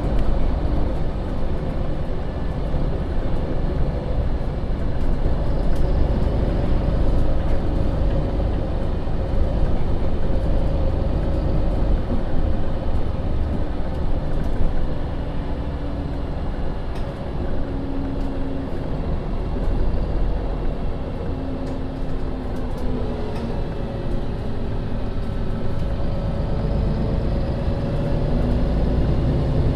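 MAN Lion's City city bus driving, heard from inside: a steady rumble of engine and road noise, with engine tones that shift in pitch several times as its speed changes.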